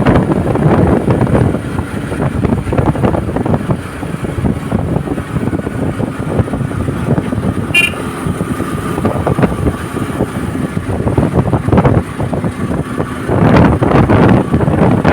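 Wind buffeting the microphone in gusts, a loud uneven rumble. About halfway through comes a short sharp click with a brief high tone, followed by a faint steady tone for a few seconds.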